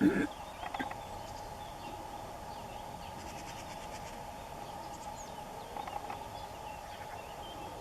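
Outdoor field ambience: a steady insect drone with a few faint, short bird chirps, and a brief sharp sound right at the start.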